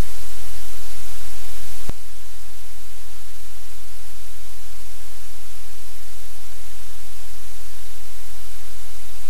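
Loud, steady hiss of static with a low hum beneath it; a single click about two seconds in, after which the hum changes and the hiss drops slightly.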